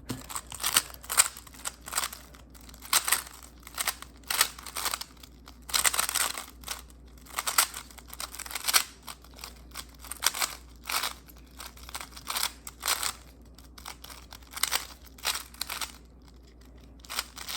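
A 3x3 speedcube being turned fast during a timed solve: quick runs of plastic clicking and clacking as the layers turn, broken by short pauses and a longer pause of about two seconds near the end.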